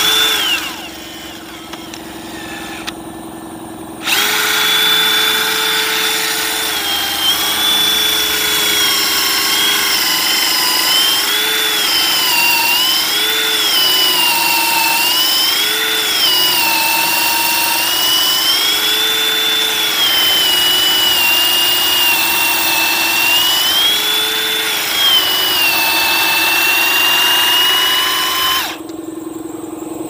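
DeWalt cordless drill boring a long bit into a carved wooden sculpture. It gives a short burst at the start, then about four seconds in it settles into a long continuous run, its motor whine rising and falling as the trigger is eased. It stops shortly before the end.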